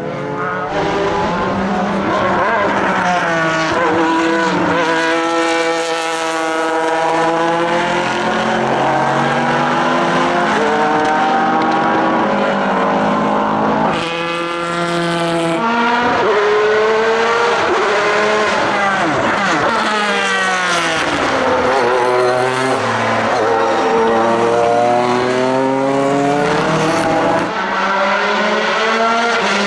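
Pilbeam MP93 LMP2 racing prototype's JPX/Mader V6 engine under hard acceleration, its pitch climbing through the gears and dropping back again and again as the car laps.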